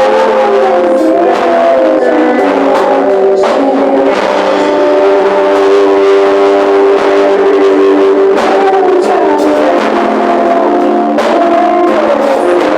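Worship band playing live in rehearsal: guitar over held chords with a gliding melody line on top. The sound is thin, with almost no bass.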